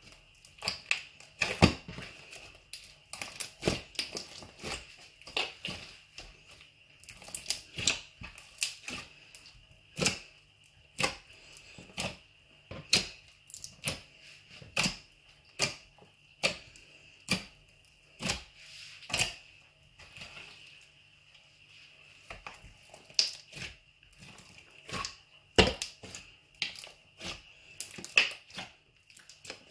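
A large mixed slime with foam beads being kneaded and folded by hand, giving sharp sticky clicks and pops about once a second, with a short lull about two-thirds of the way through.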